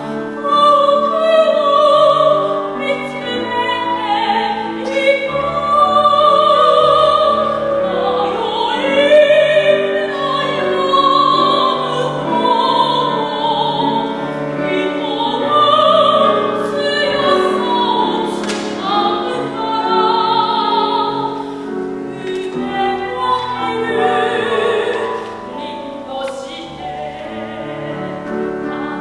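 Classically trained soprano singing a Japanese art song in operatic style, her held notes wavering with vibrato, accompanied by grand piano.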